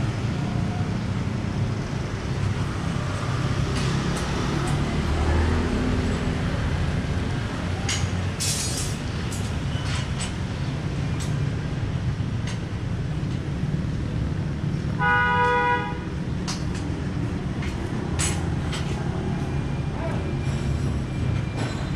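Steady low traffic rumble with a vehicle horn honking once for about a second, a little past the middle. Scattered light clicks and taps sound over it.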